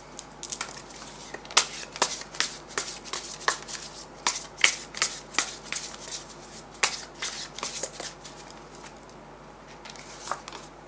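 A deck of tarot cards being shuffled by hand: a run of quick, irregular card snaps that thins out about eight seconds in, with a couple more near the end.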